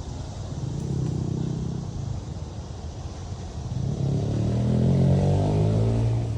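An engine running outdoors, its pitch rising and its sound growing louder about four seconds in, as with a motor vehicle speeding up.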